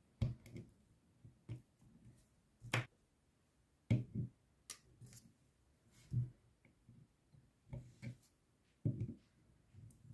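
Irregular sharp clicks and light knocks of small hand tools and parts being handled and set down on a work surface.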